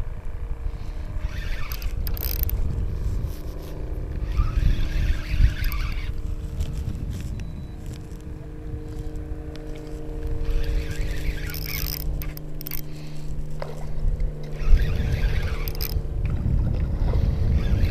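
Wind buffeting the microphone over a steady low hum in the middle stretch, with four short bursts of splashy hiss as a hooked redfish swirls and thrashes at the surface.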